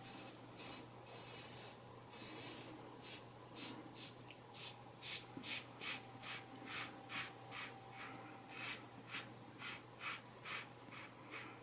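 Single-blade razor scraping through lathered stubble in short, light strokes against the grain, about two to three strokes a second.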